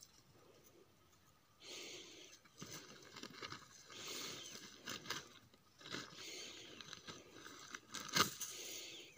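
Faint crunching and rustling of dry material in short irregular bursts, starting after a quiet second and a half, with scattered sharp clicks and one louder snap a little after eight seconds.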